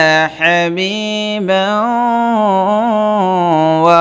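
A voice reciting the Quran in slow, melodic tajweed chant. After a brief break it draws out the word 'hamiman' as one long held note that wavers slightly in pitch.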